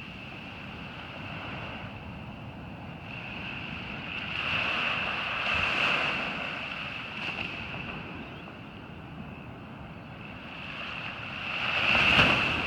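Ocean surf washing onto a beach, swelling up twice as waves break, with a steady high-pitched tone underneath.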